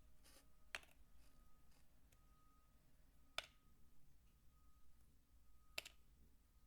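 Three faint, crisp clicks, about two and a half seconds apart, from bar soap being cut or handled in a quiet room.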